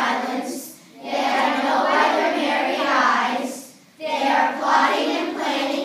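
A large group of children reciting a poem in unison, line by line, with short breaths between lines about a second in and about four seconds in.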